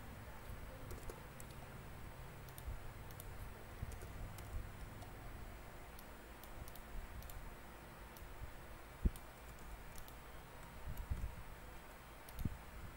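Faint, scattered computer keyboard keystrokes and mouse clicks, with a sharper thump about nine seconds in.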